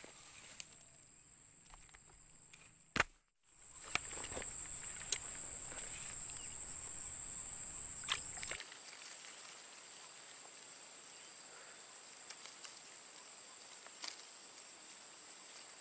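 Steady high-pitched insect chorus, with a few faint clicks; the sound cuts out briefly after a sharp click about three seconds in.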